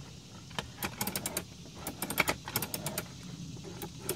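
Unpowered Ridgid Octane 18V cordless circular saw being handled: a run of quick clicks and light rattles from its plastic and metal parts and its metal shoe as it is worked on the work table.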